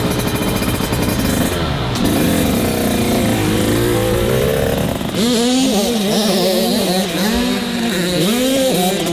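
Motocross dirt bike engines running on the track, with the pitch climbing over the first few seconds. From about five seconds in, one bike's engine note rises and falls over and over as the throttle is worked and released.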